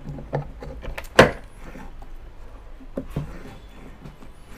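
Scattered knocks and clicks of metal parts as an air cooler motor's rotor is set into its stator housing on a wooden workbench, with one sharp knock about a second in.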